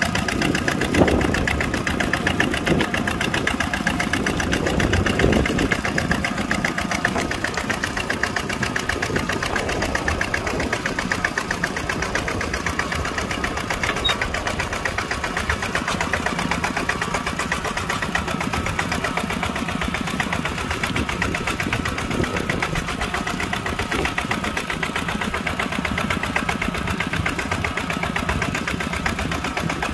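Kubota tractor's diesel engine running steadily with a rapid, even firing beat, a little louder in the first few seconds.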